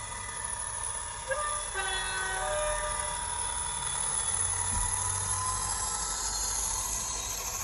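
Sound-fitted OO gauge model of a Class 57 diesel locomotive, its ESU LokSound decoder sounding a brief two-tone horn (two notes, one after the other) about two seconds in, through the model's small speaker, over the steady running sound of the diesel engine.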